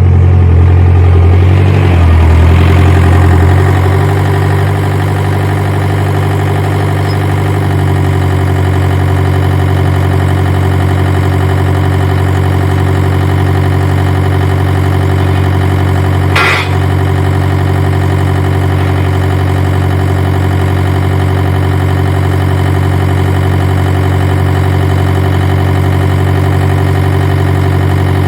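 An engine running at a steady idle, louder and uneven for the first few seconds before settling, with a single sharp click about sixteen seconds in.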